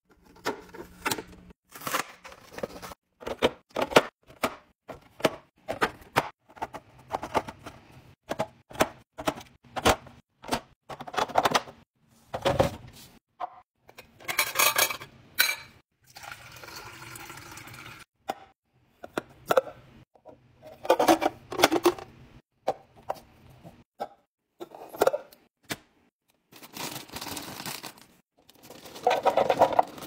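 Clicks, taps and knocks of plastic bins, lids and containers being handled and set down on a countertop, with one heavier thump about halfway through. A little past the middle comes about two seconds of steady running water into a glass measuring jug. Near the end a plastic bag rustles as crinkle-cut chips pour into a clear plastic canister.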